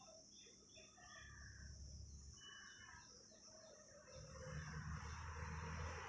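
Faint background with short chirps like distant birds, and a low rumble that grows louder about four seconds in.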